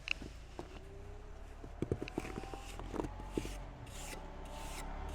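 A hand tool scraping and pressing wet chinking mortar into the gaps between logs, with scattered small knocks in the first half and several short scrapes in the second half.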